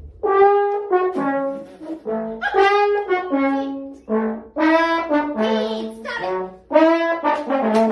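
Trombone playing a quick run of short, separate notes that change pitch from one to the next.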